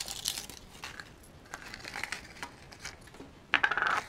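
Small plastic wrapper crinkling as it is handled and opened, with a louder burst of rustling near the end.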